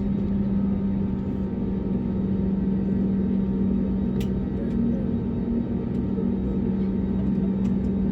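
The Airbus A321neo's CFM LEAP-1A engines idling, heard from inside the cabin: a steady drone with a constant low hum, the air-conditioning packs switched off for takeoff. A faint click about four seconds in.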